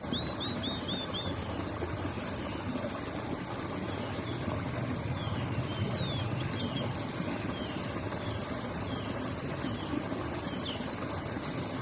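Steady outdoor rushing noise with small birds chirping over it: a quick run of five short falling chirps at the start, then scattered single chirps.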